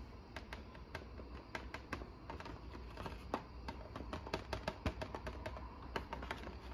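Faint, irregular clicks and taps, a few a second, from a hand pressing and handling the chest of an animatronic figure through its knit sweater.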